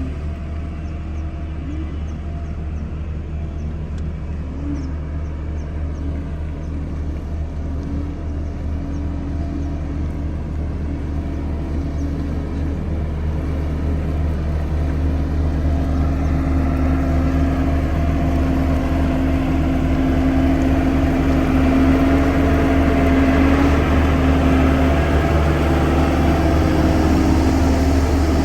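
Diesel engine of a heavy earthmoving machine such as a bulldozer running steadily, growing gradually louder over the second half.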